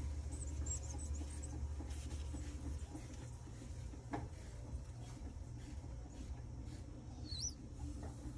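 Fingertips pressing and sliding over iPad screen glass, with a few short high squeaks of skin on glass about half a second in and again around seven seconds in, over a low steady hum.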